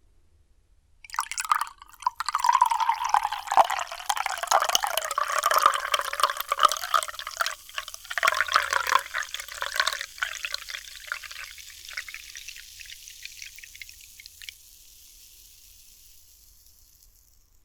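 Liquid poured with a dense crackle, starting suddenly about a second in; after about nine seconds it dies down to a thin hiss that slowly fades away.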